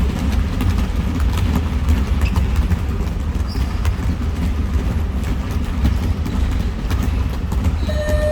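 Basketballs bouncing on a gym floor in scattered knocks over a loud, steady low rumble. A thin high tone starts near the end.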